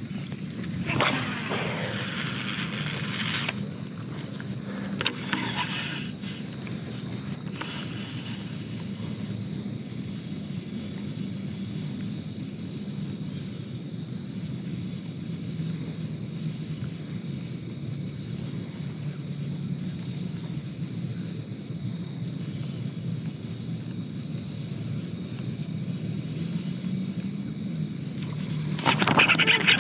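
Crickets and other insects calling in a steady high-pitched drone, with a short chirp repeating about twice a second through the middle. A louder rush of noise fills the first few seconds, and a loud noisy burst breaks in near the end.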